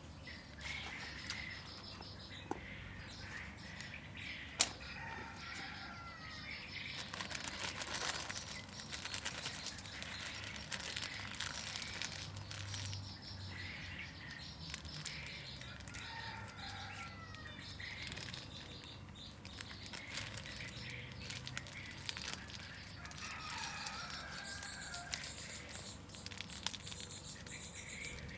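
Small birds chirping over and over, with the crinkle and rustle of a plastic bag and leaves being handled, busiest about a quarter to halfway through, and one sharp click about five seconds in.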